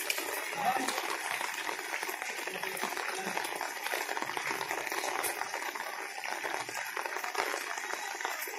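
Floodwater moving and splashing, a steady watery noise.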